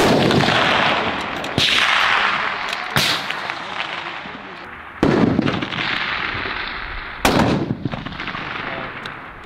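Rifle shots from a muzzle-braked precision rifle: five sharp reports spaced a second and a half to two seconds apart, each followed by a long rolling echo that fades over a second or two.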